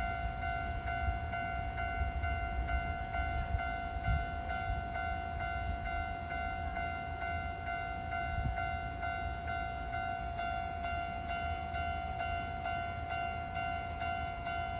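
Japanese railway level-crossing alarm ringing on and on, a steady electronic bell tone repeating about twice a second over a low rumble. The crossing stays closed because an overhead-line power outage has halted the trains.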